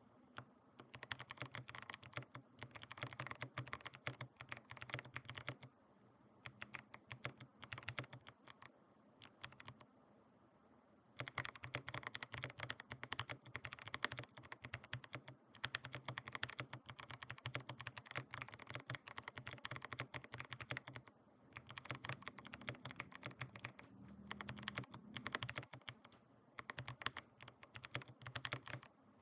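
Typing on a mechanical keyboard with clicky Kailh BOX White switches, lubed, in a Drop CTRL High Profile case with foam and silicone fill: fast runs of crisp key clicks with short pauses, the longest about ten seconds in.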